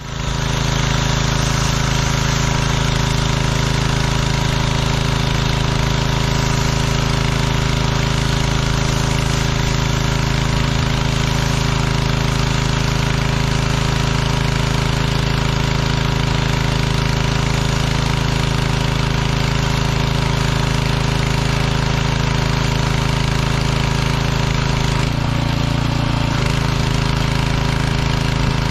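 Gas-engine pressure washer running steadily at close range while its wand sprays water, the engine's even hum over a hiss of spray. Its engine note shifts briefly near the end.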